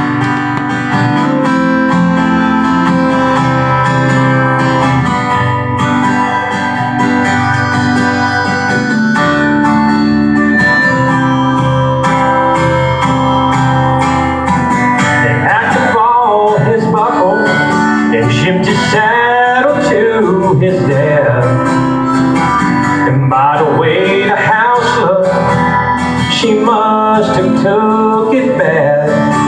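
Acoustic guitar played as a country song's intro, with a man's singing voice joining about halfway through.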